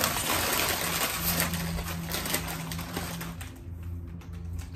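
Crinkling and crackling of plastic-foil chip bags being opened and handled, dense with crisp crackles, easing off about three and a half seconds in.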